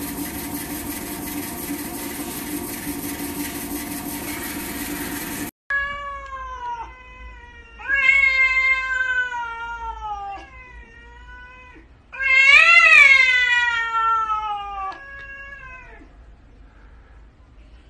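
A robot vacuum's steady whirring hum, which cuts off abruptly about five seconds in. Then come a cat's long, drawn-out yowls, about five of them, each bending up and down in pitch, the loudest a little past the middle: threatening yowls in a face-off between two cats.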